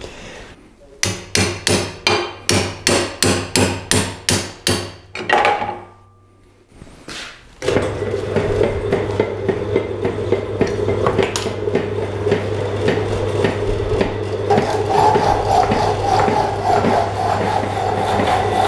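A rapid run of about fourteen hammer blows on a steel chisel wedged in a bench-vice-held clamp, driving it in to open out the bent jaw. After a short pause, an Elliott 10M metal shaper starts running with a steady hum.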